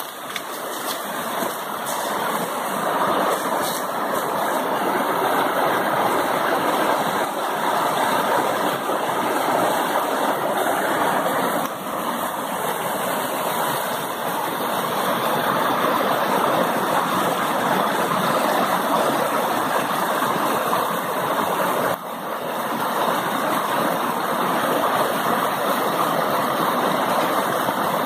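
White water of a mountain creek cascading over rocks in a series of small falls: a steady, even rush.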